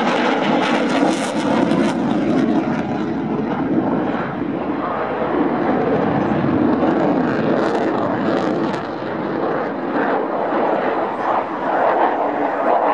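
Saab JAS-39 Gripen's single Volvo RM12 turbofan jet engine, loud and steady as the fighter flies its display. Crackle rises in the noise about a second in and again around eight seconds.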